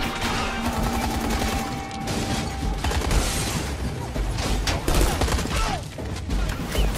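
Sustained gunfire: many rapid shots from several guns in quick succession, with a film score running underneath.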